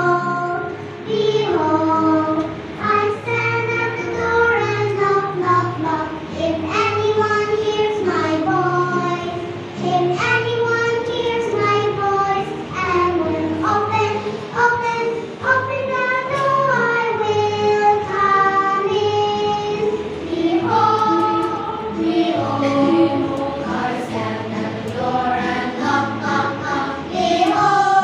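Children's choir singing a gospel song, the voices moving together in sustained sung phrases.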